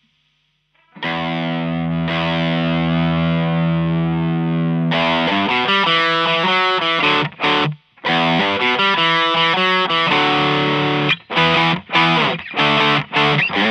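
Electric guitar with humbuckers (a Gibson Les Paul) through a Maxon OD808 overdrive pedal into a Fender Blues Deluxe tube amp. A distorted chord is struck about a second in and left to ring, then rhythmic chord playing follows, with short stops and choppier stabs near the end.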